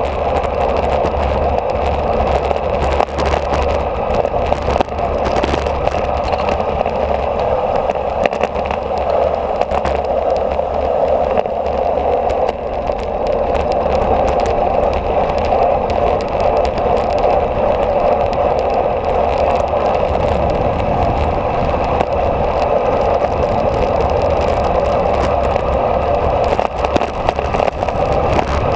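Steady rush of wind over an onboard camera's microphone, with tyre noise and small crackles from the road surface, during a fast downhill ride.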